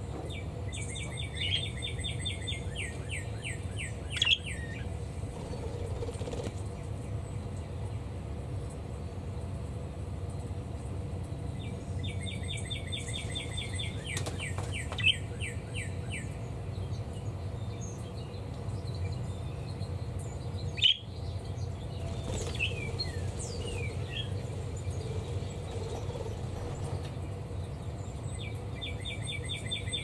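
Pet budgies and cockatiels chirping: three spells of rapid, evenly repeated high chirps lasting a few seconds each, about a second in, around twelve seconds in and near the end, with a few short sliding whistled notes in between. A steady low hum runs underneath, and there is a single sharp click past the middle.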